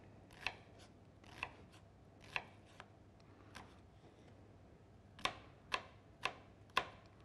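Knife chopping an onion: a few scattered chops in the first seconds, then a steady run of about two chops a second near the end.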